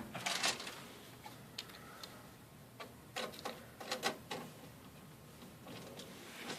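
Light, irregular clicks and ticks of a screwdriver and small screws against metal, as a motherboard screw is worked into its standoff in a computer case.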